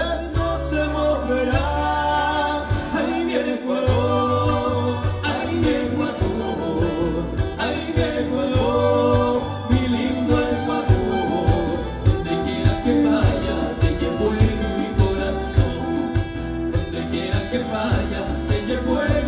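Live band playing a song: a man singing over nylon-string acoustic guitar, keyboard and violins, with a steady low beat coming in about four seconds in.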